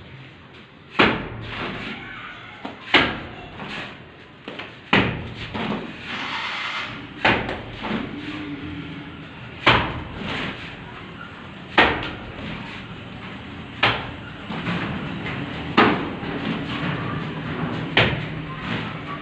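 Wet cement mortar thrown from a shovel onto a brick wall, landing with a sharp slap about every two seconds. Between throws, a steel shovel scrapes into the mortar heap on a concrete floor.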